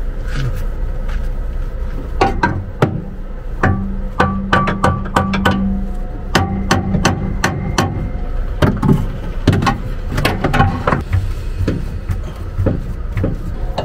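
Irregular sharp knocks and clanks of hand tools on the motorhome bus's exhaust piping, with music playing.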